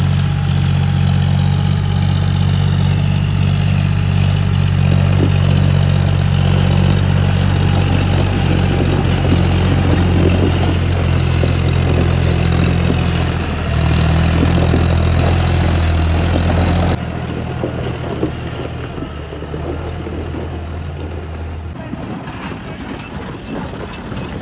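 John Deere four-wheel-drive tractor's diesel engine running steadily under load, close by, while it pulls a loaded trailer. About seventeen seconds in, the engine note drops suddenly to a fainter, rougher rumble that fades out a few seconds later.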